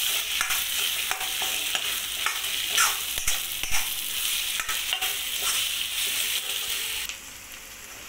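Metal spatula stirring and scraping Indian gooseberries (amla) frying in hot oil with coarse chilli-spice powder in a pan: a steady sizzle with frequent short clicks and scrapes of the spatula on the pan. The sound drops quieter about a second before the end.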